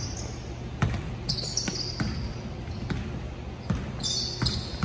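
Basketball being dribbled on a gym court, with several sharp bounces about a second apart and short high squeaks twice.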